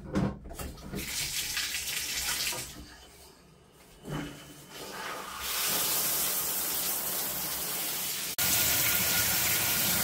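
Water rushing through a newly installed high-pressure handheld shower head and spraying into the tub, turned on to check the connections for leaks. The flow is uneven at first, then runs steady and louder from about halfway through.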